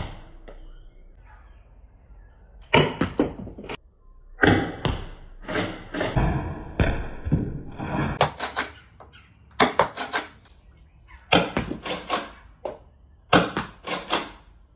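Modded Nerf Rival Takedown pump-action blaster with a stronger aftermarket spring, primed and fired again and again. Each shot is a quick cluster of sharp clacks and snaps, about every one to two seconds.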